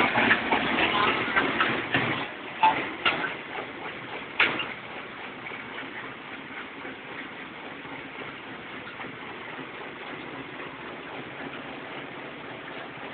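Corn-flattening machine running steadily, with a few sharp knocks in the first few seconds.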